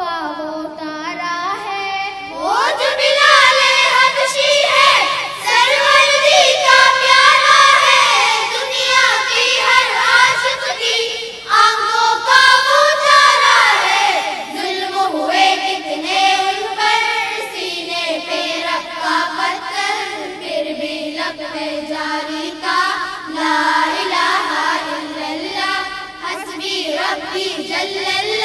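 A group of school children singing a hamd, a devotional song in praise of God, together into microphones.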